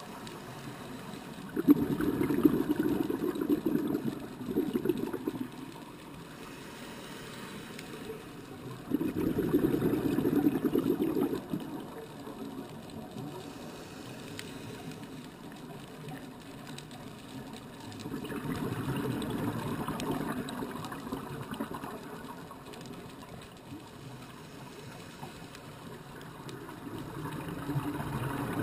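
Scuba regulator exhalations heard underwater through a GoPro's waterproof housing: four muffled bubbling surges, each lasting a few seconds and coming about eight seconds apart, with a low hiss between them.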